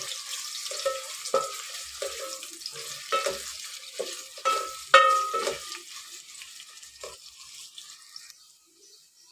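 Sliced onions sizzling in hot oil in a metal pot, being lightly browned, while a wooden spoon stirs them with repeated knocks and scrapes against the pot's sides. The loudest knock comes about five seconds in, and the stirring stops near the end.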